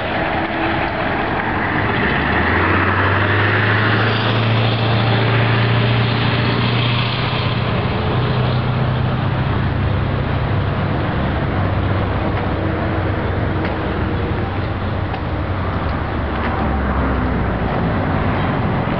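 Road vehicle noise: a steady rush with a low engine drone that comes in about two seconds in and fades near the end.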